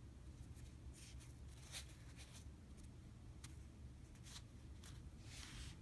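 Near silence: a low room hum with a few faint, brief rustles of a hand squeezing and handling a small homemade squishy toy.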